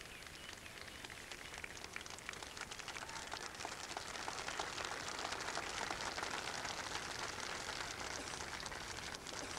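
Audience applauding, swelling a couple of seconds in and easing off near the end.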